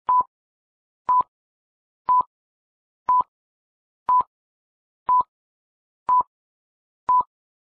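Eight short electronic beeps, all at one steady mid pitch, evenly spaced about a second apart like a countdown, with silence between them.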